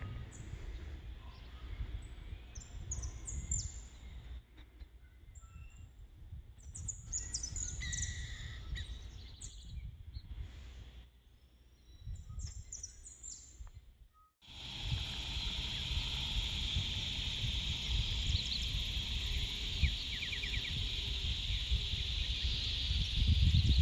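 Birds chirping, short high calls, over low wind rumble on the microphone. About fourteen seconds in the sound cuts abruptly to a steady high-pitched hiss, still with wind rumble underneath.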